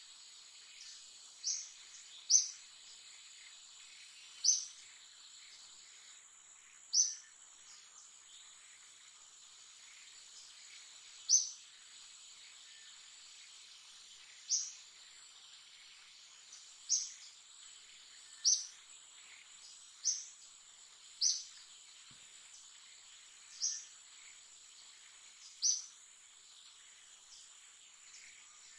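A bird's short, high chirp, repeated about a dozen times at uneven gaps of one to four seconds, over a steady high-pitched insect drone.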